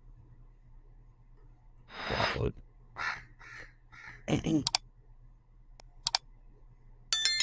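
A few short voice-like sounds, then sharp mouse-click sound effects and a bright chime near the end, from an animated like-and-subscribe button overlay.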